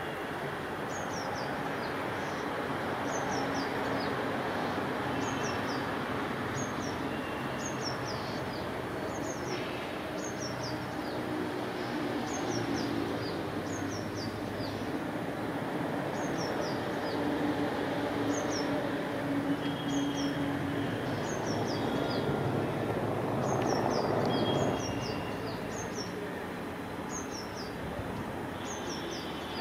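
Distant EMD WDP4D two-stroke diesel locomotive working uphill under load, a steady low engine drone that swells a little and eases off near the end. A bird repeats short, high, falling chirps about once a second over it.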